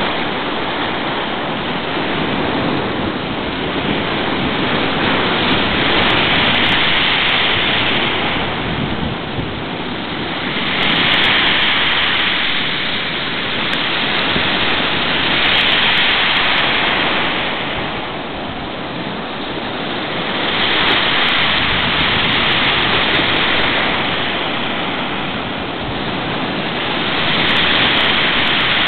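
Rough storm sea: surf roaring continuously as waves break, swelling and easing every few seconds, in a gale.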